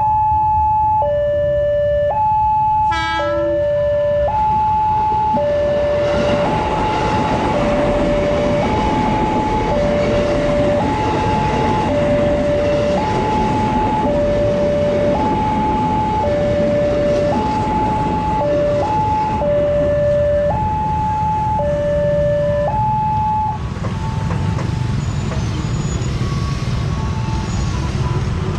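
Railway level-crossing alarm sounding a two-tone electronic warning, switching between a high and a low tone about once a second, while a train passes with a broad rumble of wheels on rails. The alarm stops a few seconds before the end as the train noise carries on.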